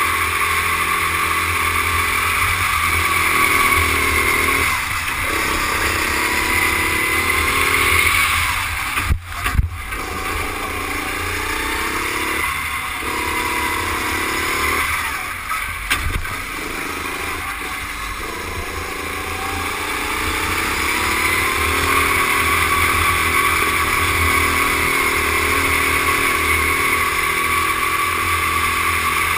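Rental kart engine running hard at racing speed, its pitch dropping several times as the driver lifts for corners and climbing again on the straight near the end.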